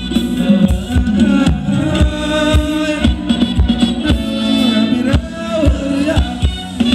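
Band playing Thai ramwong dance music, with a singer's voice over a steady, evenly repeating drum beat.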